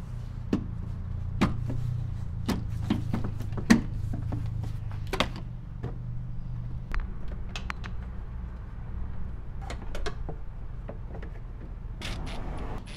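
Scattered clicks and knocks of a plastic cargo sill trim panel being unclipped, lifted and handled, over a steady low hum.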